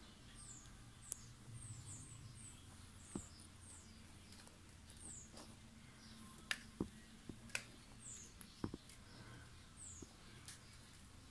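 Faint, high, short chirps that fall in pitch, repeating at irregular intervals, over a low steady hum. A few sharp clicks sound now and then, the loudest about six and a half to nine seconds in.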